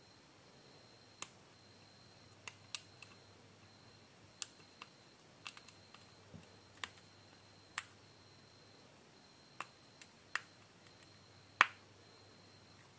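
Scattered sharp clicks and taps of small tools and parts being handled on a smartphone under repair, about a dozen at uneven intervals, the loudest near the end, over a faint steady hum.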